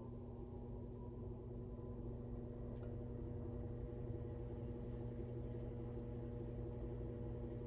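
Washing machine running: a steady motor hum with a churning rumble beneath it, and one faint tap about three seconds in.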